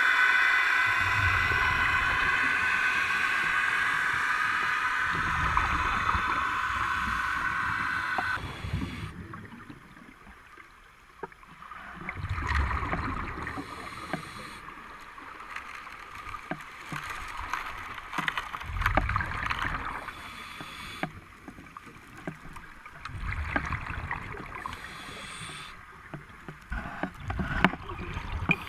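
Underwater sound of a scuba diver breathing through a regulator: a steady hiss that cuts off about eight seconds in, then low bubbling rumbles of exhaled air about every five to six seconds.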